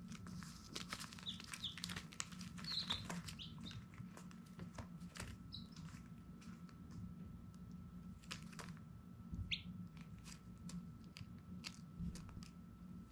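Baby chicks peeping: a few short, high chirps, several close together early on and single ones later, over scattered light clicks and rustles and a low steady hum.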